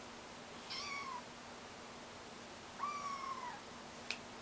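Kitten mewing twice: high calls that fall in pitch at the end, the second longer than the first. A sharp click comes near the end.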